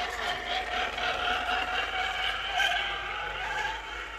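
Electric motors and gear drives of RC crawler trucks whining steadily as they drive, the pitch wavering slightly with the throttle.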